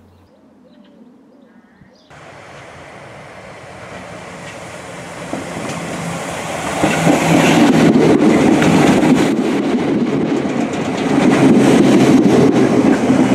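Merseyrail PEP electric multiple unit approaching and passing close by, growing steadily louder from about two seconds in, with wheels clicking over the rails as it goes past.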